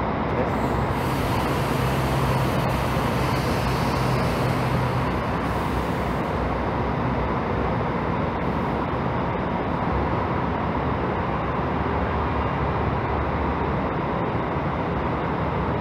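Steady rumble of idling diesel bus engines in a covered bus-station bay, with a low hum that fades out about five seconds in.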